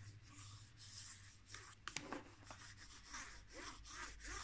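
Fingertips rubbing and scratching over the dotted, textured cardboard surface of a smartphone retail box: faint, repeated scraping strokes with a sharper tick about two seconds in.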